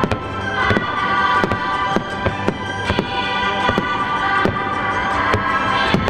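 Fireworks shells bursting in quick succession, roughly two or three sharp bangs a second, over music with steady held notes.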